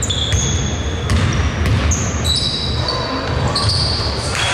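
Basketball game sounds on an indoor court: the ball bouncing as it is dribbled, with many short high-pitched sneaker squeaks on the floor.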